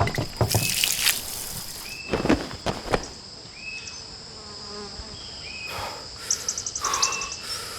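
Steady high-pitched insect chirring, cricket-like, with a short rapid trill near the end. Several sharp knocks and clicks sound in the first few seconds.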